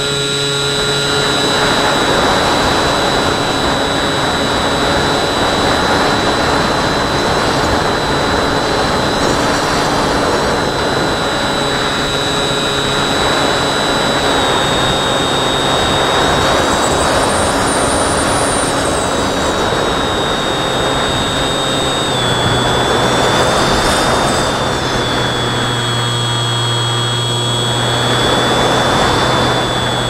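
Electric motor and pusher propeller of a Bixler2 foam RC plane running with a steady high whine, heard from the plane's onboard camera. Heavy rushing air over the airframe and microphone swells several times as the plane is buffeted in high wind.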